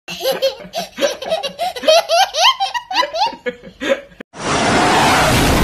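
A baby laughing hard in quick, rising bursts of giggles for about four seconds. A loud, steady rushing hiss then starts suddenly near the end.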